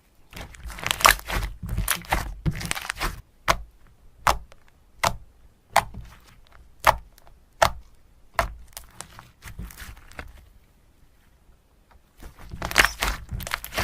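Crunchy slime being pressed and squeezed by hand, giving bursts of crackling and a run of single sharp snaps about one every three-quarters of a second in the middle.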